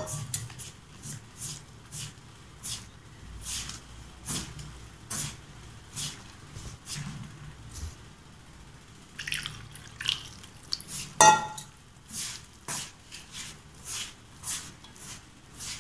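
A hand working wheat flour and water into dough in a metal bowl: irregular wet squelches and scrapes against the bowl, about one or two a second, with a sharper one a little past the middle.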